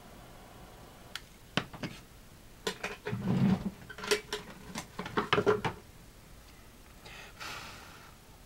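Small hard objects handled on a tabletop: a lighter set down and a pair of scissors picked up. Light clicks start about a second in, then a busier run of clicks and knocks with one duller thump about three seconds in.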